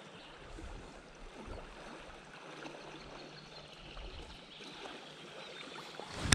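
River water rushing steadily past, the river running high with more water than normal. A single sharp click right at the end.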